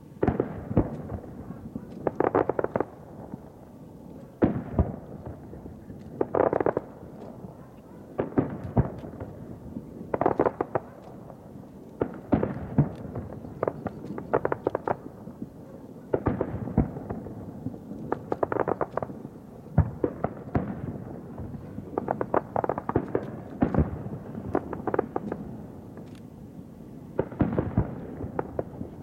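Aerial firework shells bursting one after another, sharp booms followed by crackling, about every two seconds.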